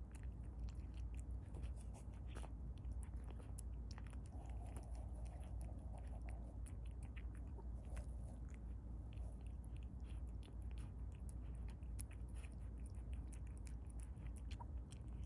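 Domestic cat eating wet canned cat food, chewing and licking with many small, quick wet clicks, over a steady low hum.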